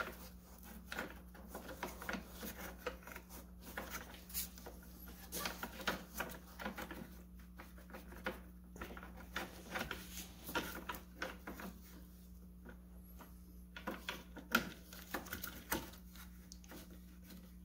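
Irregular small metallic clicks and taps as a horn's mounting bracket and bolt are handled and fitted into place by hand, over a steady low hum.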